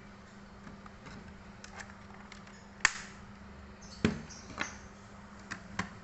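Sharp plastic clicks and knocks from a netbook being handled and snapped back together. One loud click comes about three seconds in, a second about a second later, and a few lighter ones follow, over a faint steady hum.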